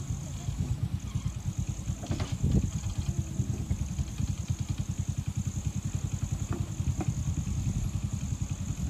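Diesel engine of a truck loaded with sugarcane running at low revs under load as it crawls over a muddy, rutted track, a steady low pulsing, with a few sharp knocks about two seconds in and again near seven seconds.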